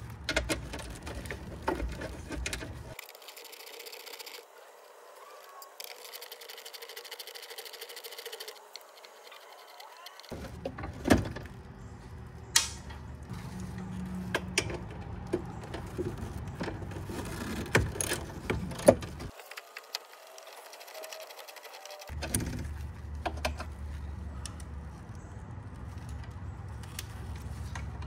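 A 10 mm ratcheting wrench clicking as bolts are worked loose, with sharp metal clinks from the tool and bolts now and then.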